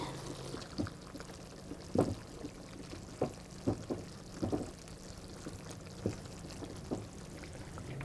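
Chopped reindeer meat frying in a pan in melted reindeer fat, stirred with a wooden spatula: scattered short knocks and scrapes of the spatula against the pan over a faint sizzle.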